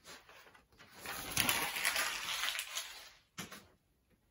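Rustling and shuffling of a person getting up and moving close past the microphone, with a short knock about three and a half seconds in.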